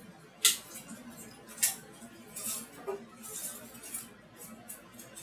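Cardboard product box being opened with a knife: two sharp clicks, then a run of scraping and rustling noises as the blade and hands work the box.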